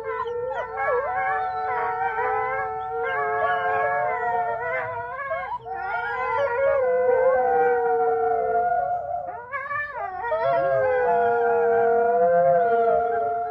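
Wolves howling in chorus: several long, held howls overlap at different pitches, with shorter wavering calls weaving among them.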